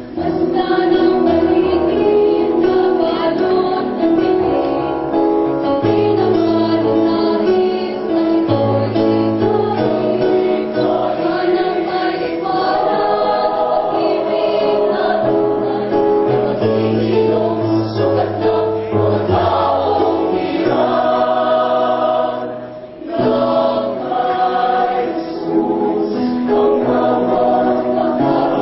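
A mixed choir of female and male voices singing in parts, with a short break about two-thirds of the way through.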